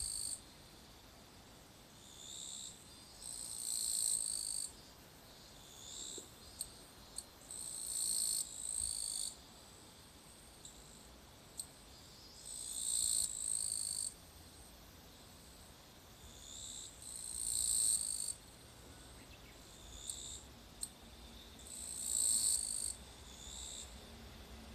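Insects calling in high-pitched bursts of one to two seconds, each swelling and then cutting off, repeated about every four to five seconds.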